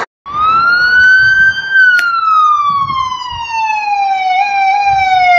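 An approaching ambulance's siren sounding one long wail. It rises for about two seconds, then falls slowly, wavering slightly near the end. The audio cuts out briefly at the start.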